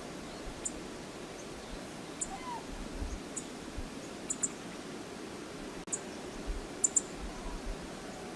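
Steady rush of river water, with brief high ticks or chirps every second or so.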